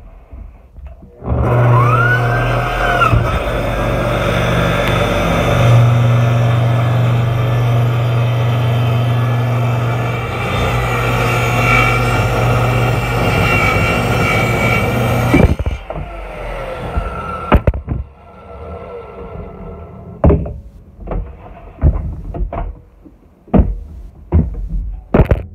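Portable table saw's motor started, whining up to speed, then running steadily with a strong hum through a cut. It stops suddenly about fifteen seconds in, followed by a series of knocks and clatter.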